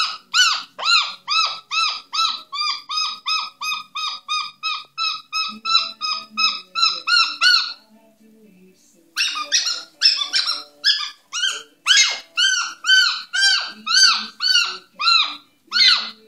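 Moluccan cockatoo giving rapid, evenly repeated short yapping calls, about three a second, breaking off for about a second midway and then starting again.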